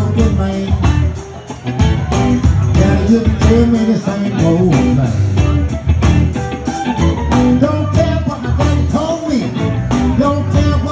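Live blues band playing over a steady drum beat: electric bass, guitar, drum kit and keyboard.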